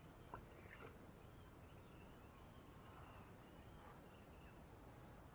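Near silence: faint outdoor ambience with soft, repeated high chirping and a small click near the start.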